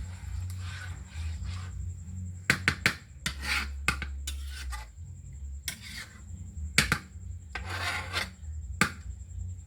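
A cooking utensil scraping on cookware in irregular strokes, with a few sharp clinks about two and a half seconds in, near seven seconds and near nine seconds.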